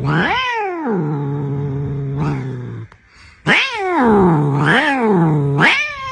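Brown tabby cat caterwauling in a way that sounds like a car accelerating. A low, steady drone swings up in pitch and falls back down once near the start and three more times in the second half, with a short break about three seconds in.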